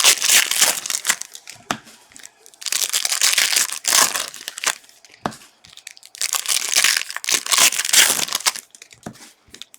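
Plastic wrappers of trading-card packs crinkling and tearing as they are ripped open by hand. The crackle comes in three bursts of a second or two each, with a few sharp clicks between them.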